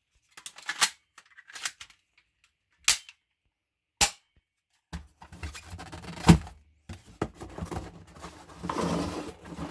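Sharp clicks from a ZM17 6mm airsoft BB pistol being handled, about five separate snaps a second or so apart. They are followed by a few seconds of rustling handling noise.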